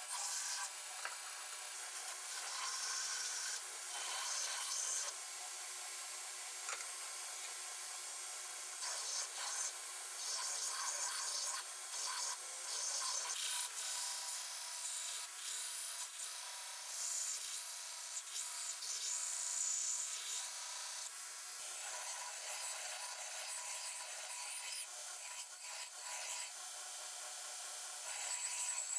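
Belt grinder grinding a steel knife blade: the abrasive belt scrapes across the steel in a continuous hiss that swells and eases as the blade is pressed on and drawn along, more unevenly in the last third.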